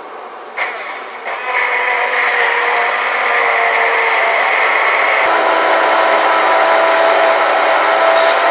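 Hand-held immersion blender running in a pot, puréeing thick cooked habanero pepper sauce. It switches on within the first second, its motor pitch shifts about five seconds in as it works through the sauce, and it stops near the end.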